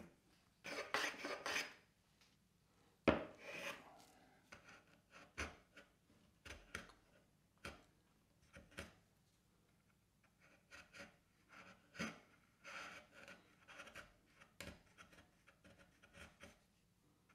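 Hand tools cutting a wooden block: a small hand plane takes a quick stroke or two along the edge early on, a sharp knock comes about three seconds in, then a hand-held blade makes a long series of short, separate scraping cuts in the wood.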